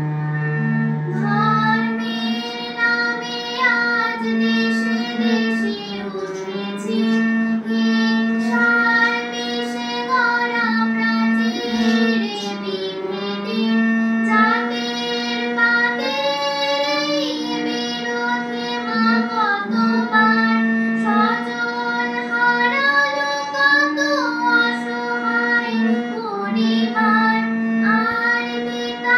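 A young girl singing a Bengali song while playing a harmonium, its held reedy notes sounding under her wavering melody.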